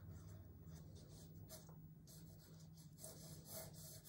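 Faint scratching of a pencil moving over drawing paper, in a few light strokes, over a steady low hum.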